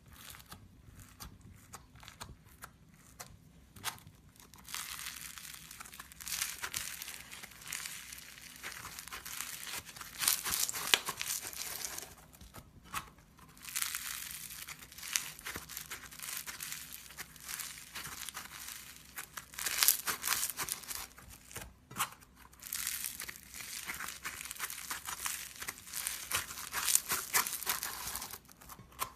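Crunchy slime squeezed and kneaded by hand, giving dense crackling and crinkling. It starts with sparse clicks and then comes in runs of several seconds with short pauses between.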